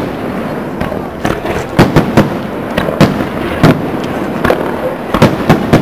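Aerial firework shells bursting in a display: a dozen or so sharp bangs in quick, irregular succession over a steady din.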